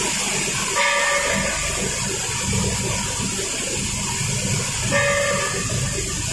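Hanger-type shot blasting machine running: a steady loud hiss over a low rumble. A short pitched tone sounds twice, about a second in and again about four seconds later.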